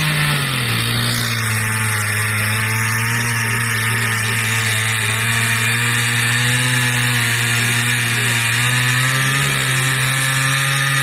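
Two-stroke chainsaw running with its bar cutting into ice. Its engine note drops about half a second in, then holds steady and rises slightly near the end.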